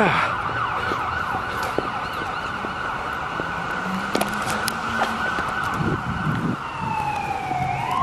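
Emergency vehicle siren sounding steadily, its pitch dropping and then sweeping back up near the end, with a few short clicks over it.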